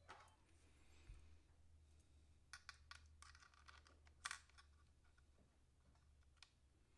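Faint, scattered clicks of small aluminum chassis parts and screws being handled and fitted by hand on an RC car, the clearest about four seconds in, over a low steady hum.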